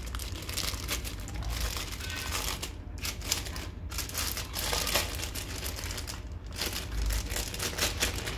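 Clear plastic bag crinkling and rustling in an uneven run of crackles as the device inside is handled and pulled out of it, with a few brief pauses.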